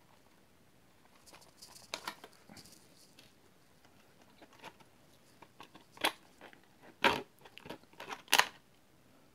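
Body clips being pulled from a Remo 1651 Dingo RC buggy and its plastic body shell lifted off the chassis: a scatter of small clicks and plastic rattles, with three louder clacks in the second half.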